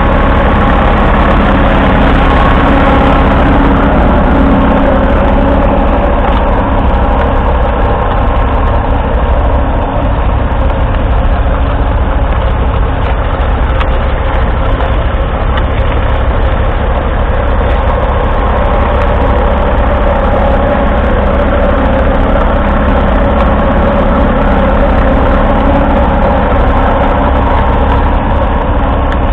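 1942 Fordson Model N's 4.4-litre four-cylinder petrol/TVO engine running steadily under load, pulling a two-furrow trailed plough through the soil.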